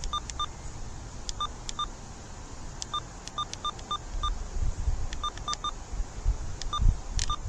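Short electronic beeps scattered irregularly, some low-pitched, some high and some both at once, mixed with sharp clicks, over a low radio rumble and hiss.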